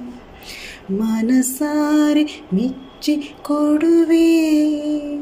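A woman singing a melody solo, holding long notes and sliding between pitches, with a breath drawn about half a second in.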